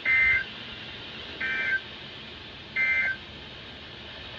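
Emergency Alert System end-of-message data bursts: three short, harsh digital chirps about 1.3 s apart over a steady broadcast hiss, marking the end of the severe thunderstorm warning. The second burst is a little quieter than the other two.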